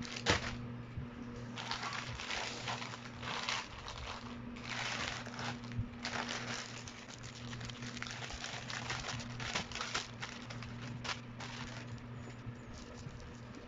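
Irregular crinkling and rustling, like plastic or paper being handled, over a steady low electrical hum.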